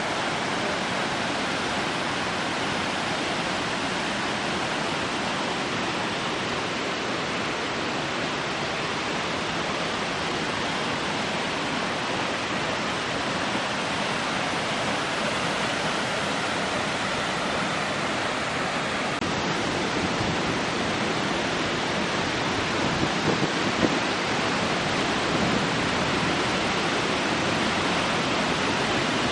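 Waterfall: falling water rushing steadily, an even, unbroken roar.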